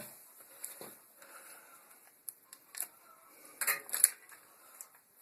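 Scattered light metallic clicks and clinks of a bicycle chain being handled, with a short burst of louder rattling about three and a half seconds in.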